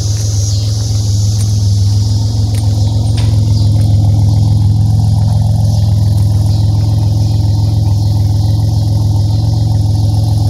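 2007 Pontiac Grand Prix GT's supercharged 3.8-litre V6 idling steadily with a deep, even exhaust hum, fitted with a smaller 3.0 supercharger pulley and running well. It gets slightly louder a couple of seconds in.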